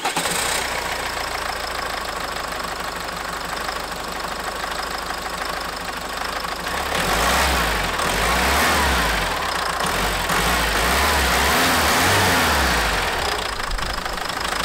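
Renault F9Q 1.9 dCi diesel engine of a 2002 Volvo V40 running just after starting, louder for a few seconds in the middle. It is newly fired up after a fuel filter change and hand priming, running without airlocks.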